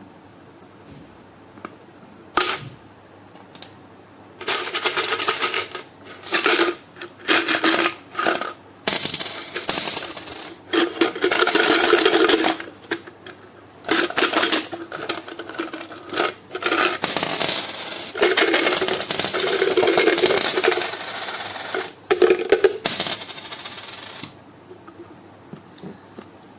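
Coins clinking and rattling in a toy piggy bank, in repeated bursts of half a second to two seconds, starting about two seconds in and stopping a couple of seconds before the end.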